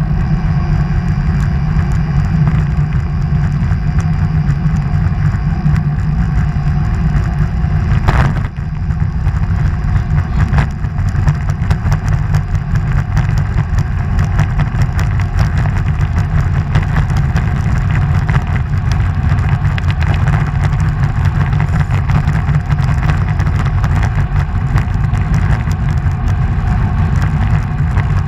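Steady driving noise from a moving road vehicle: engine and road noise with a strong low rumble, and one short knock about eight seconds in.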